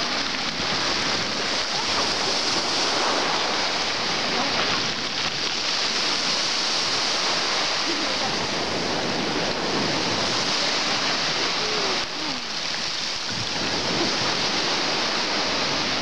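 Small waves of a calm sea washing onto the beach, a steady surf wash.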